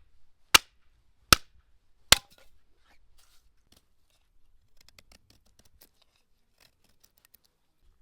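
Wood campfire crackling: three loud, sharp pops in the first two seconds or so, then faint, scattered small crackles.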